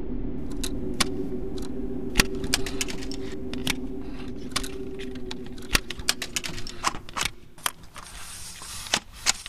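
Irregular sharp clicks and light metallic rattles of a small mechanism being worked by hand. Under them runs a steady low hum that fades out about seven seconds in, and a brief hiss comes near the end.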